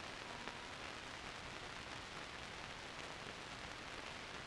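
Steady hiss with faint crackle from an old film soundtrack, and no other sound.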